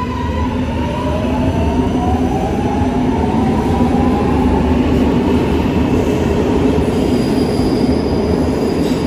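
Milan M1 metro train pulling out of the station: the traction motors whine in several rising tones as it accelerates, over the steady rumble of the wheels on the rails.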